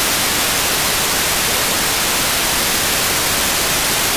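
Steady, loud hiss of an SDR receiver's FM demodulator with its squelch open, tuned to the ISS 145.800 MHz downlink while no voice is coming through.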